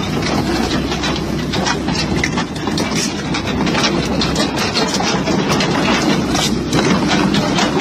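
Heavy machine's engine running steadily, with many quick clicks and rattles over it.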